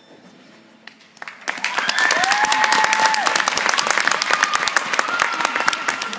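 Audience applause after a figure skating program ends: clapping starts about a second in and builds quickly, with one or two voices cheering over it.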